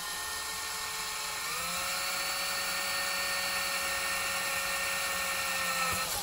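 Cordless Milwaukee drill running steadily as it bores a hole through the side of a pressurized whipped cream can to depressurize it. The motor whine steps up in pitch about a second and a half in, holds, then cuts off near the end.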